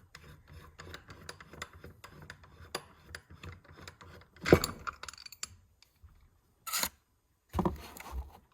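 Metal clutch parts and hand tools clinking and rattling as they are handled, with a loud clank about four and a half seconds in and another clatter near the end.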